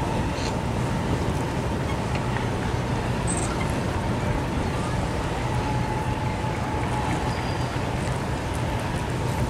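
Steady wind buffeting the microphone over choppy open water, a constant low rumble with a faint steady hum beneath it.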